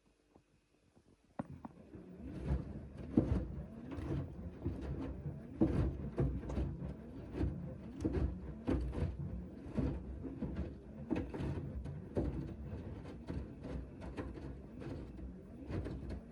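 Hoover H-Wash 500 washing machine in the main wash of a 90°C cotton cycle: about a second and a half in, the drum starts turning and the wet laundry tumbles with repeated irregular thuds and knocks over a low rumble.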